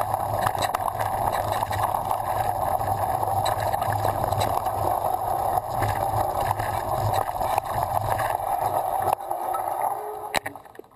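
Downhill mountain bike riding down a dirt and gravel trail: a steady muffled rush of wind and tyre noise with frequent small clattering knocks from the bike over rough ground. It eases about nine seconds in and dies away as the bike rolls to a stop.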